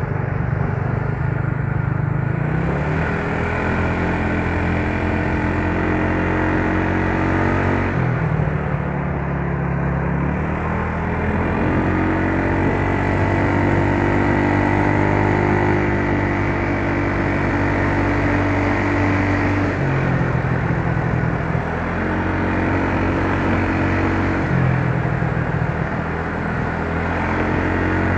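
Yamaha Mio Soul scooter's single-cylinder four-stroke engine running, its pitch stepping up and dropping back several times as the throttle is opened and eased off.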